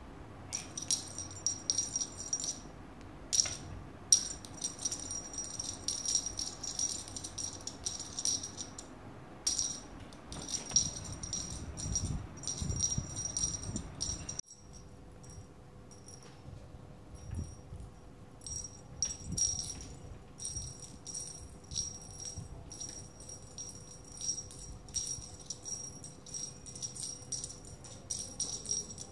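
Small jingle bell on a wand cat toy jingling in quick, irregular shakes as it is waved and batted by kittens, with a few soft low thumps.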